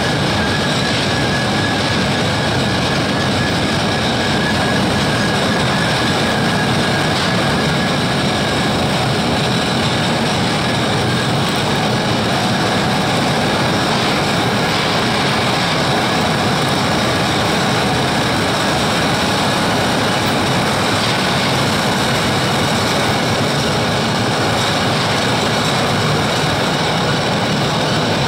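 Spudnik potato conveyor and piler running steadily, a loud continuous mechanical clatter of motor-driven belts with potatoes rolling and tumbling along them.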